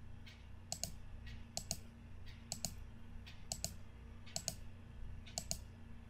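Computer mouse button clicked about once a second, six times, each click heard as two quick snaps, placing the points of a curve being drawn. A faint steady low hum lies underneath.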